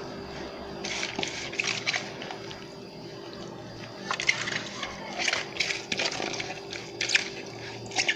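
Wet squelching and rustling of chopped tomato, pepper, onion and parsley being pressed and spread over fish in a metal tray by a rubber-gloved hand, coming in irregular bursts.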